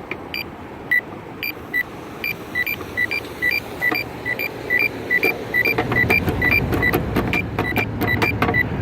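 Campbell accessible pedestrian signal push button beeping in response to repeated presses: short, high beeps that come faster, about three a second, with sharp clicks among them. Traffic noise rises in the second half.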